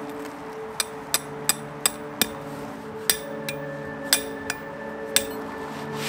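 About ten sharp knocks at an uneven pace, a few a second, with a short pause about two seconds in, over soft sustained background music.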